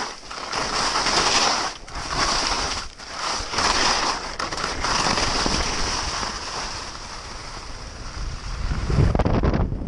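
Skis hissing and scraping over packed snow through a series of turns, swelling and easing with each turn, with wind rushing over the microphone; the wind rumble is loudest shortly before the end.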